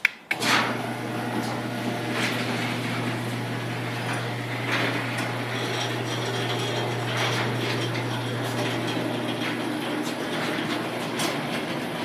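Rail-type garage door opener raising a sectional garage door: a click as it starts, then the opener motor's steady hum under the clatter and knocks of the door moving up its tracks.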